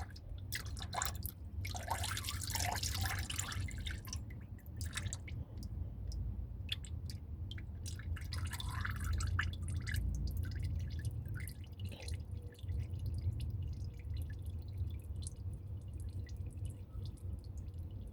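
Engine oil dripping from a loosened oil filter into a drain pan: a run of small drips, thick at first and thinning out after a few seconds, over a steady low rumble.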